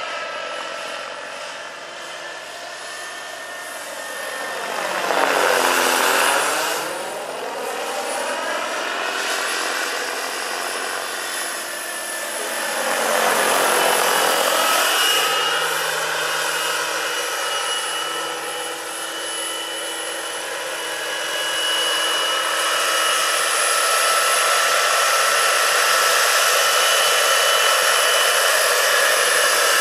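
Scale-model helicopter's Jakadofsky Pro 6000 gas turbine whining steadily, with the rotor's whoosh. The sound swells into a sweeping whoosh as the helicopter passes close about five and thirteen seconds in, then stays loud and steady over the last third.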